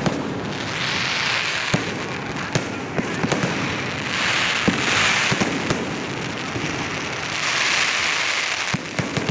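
Aerial fireworks going off: sharp bangs and pops scattered throughout, with three longer hissing swells.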